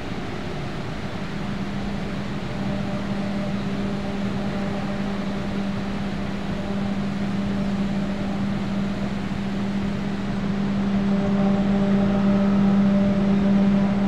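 Turbulent water rushing and churning out of an outfall, with a steady low machine hum that comes in after a second or so and grows louder toward the end.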